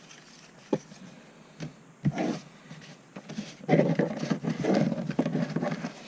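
Trading cards and packaging being handled on a tabletop: a few light knocks and taps, then a busier stretch of rustling and shuffling from a little past halfway.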